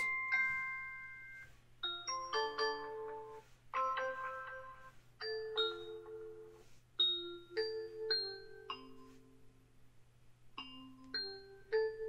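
Alexa doorbell-sound previews playing one after another: short electronic chimes and ding-dong tones, each a few notes long, about six in a row as different Ring doorbell sounds are selected.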